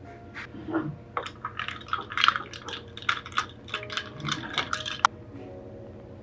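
Metal spoon stirring in a glass jar, clinking rapidly against the glass for about five seconds and ending on one sharp clink. Soft background music runs faintly underneath.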